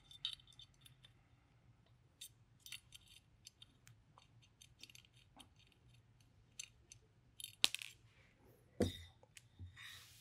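Hex screwdriver turning the small screws that hold a scope rail onto an air rifle's receiver: light, scattered metal clicks and ticks of the driver tip and screws, with a couple of sharper clicks near the end.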